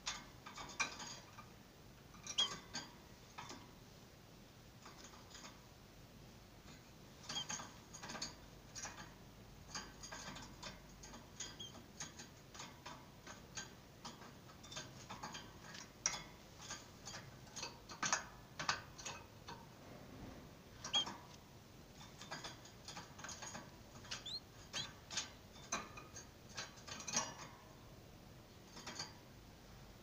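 Irregular light clicks and taps coming in small clusters, with a few faint short high chirps among them.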